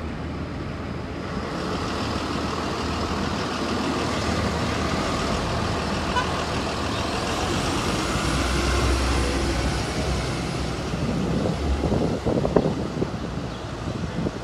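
Diesel-electric hybrid city buses (New Flyer Xcelsior) running past in street traffic. Their steady engine drone grows louder a couple of seconds in, with a faint high whine in the middle and a few short sharp noises near the end.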